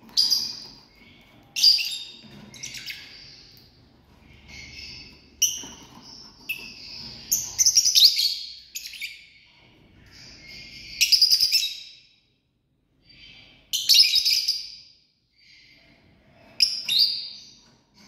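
Lovebirds chirping: repeated bursts of high-pitched chirps with short pauses between them, some bursts much louder than others.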